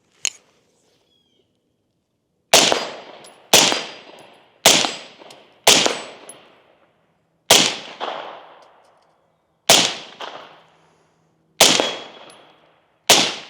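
Suppressed 10.4-inch BRN-4 5.56 rifle firing eight semi-automatic shots, one to two seconds apart, each followed by a fading echo. With the suppressor on, the rifle cycles with its H3 buffer.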